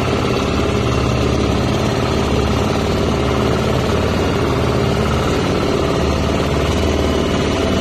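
A motorized outrigger boat's engine running steadily at an even pitch, with no change in speed.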